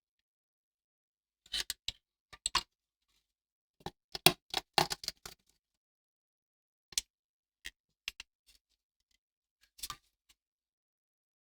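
Scattered short clicks and taps of hands handling small graphics-card parts and tools, in clusters about two seconds in and four to five seconds in, with single clicks near seven and ten seconds.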